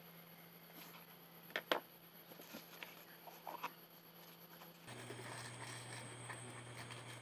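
Faint hand-handling noises over a steady low hum: a couple of sharp clicks about a second and a half in, then a few lighter ticks and scrapes. About five seconds in the hum drops to a lower pitch.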